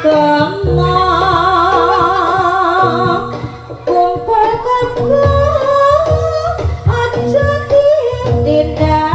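Live Javanese jaranan ensemble music: a wavering, sustained melody line over repeated gamelan notes and drum beats, dipping briefly in the middle before the melody comes back higher.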